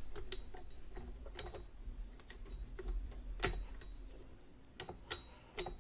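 Soft pizza dough being pulled by hand off a nylon-coated stand-mixer dough hook over a stainless steel bowl: quiet handling noises with scattered small clicks, the clearest about three and a half seconds in and near the end.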